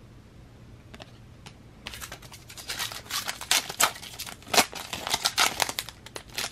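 Foil trading-card pack wrapper crinkling as it is torn open by hand. A dense run of quick crackles starts about two seconds in, after a couple of faint clicks.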